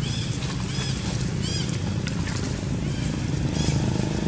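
A steady low engine hum from a motor running nearby, with a few short, high-pitched arched chirping calls over it, near the start, about a second and a half in, and again near the end.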